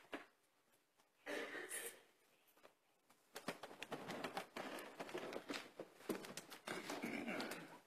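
Faint rustling, shuffling and small clicks of a church choir getting to its feet and opening music folders, thickening from about three seconds in, after a short soft rustle about a second in.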